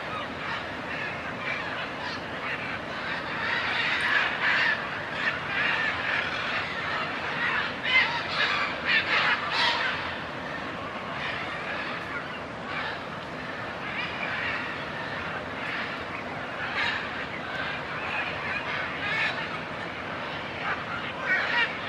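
A group of military macaws calling: many harsh, overlapping squawks, busiest and loudest about four to ten seconds in, with another loud flurry near the end.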